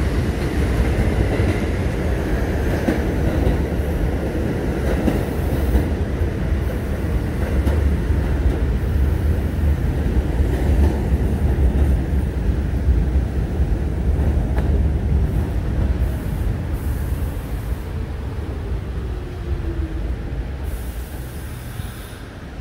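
New York City subway train pulling into an elevated station: a heavy low rumble of the cars rolling over the rails, with a falling whine near the end as it slows.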